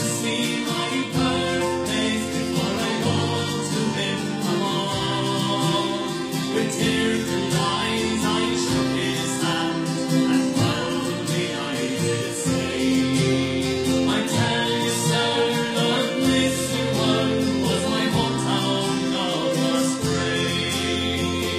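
Irish folk song with singing over fiddle, tin whistle and accordion accompaniment.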